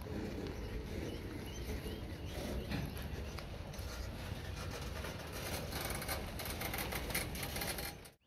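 Loaded stone hopper cars rolling slowly past on the rails, their steel wheels and trucks rumbling and clicking, with a thicker run of clicks in the second half. The sound cuts off abruptly just before the end.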